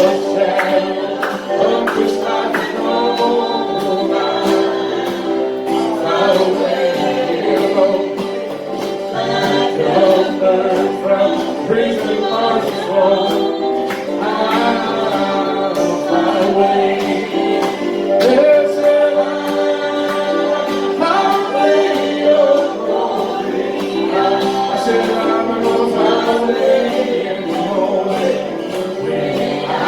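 A group of voices singing a gospel hymn together in held, steady notes.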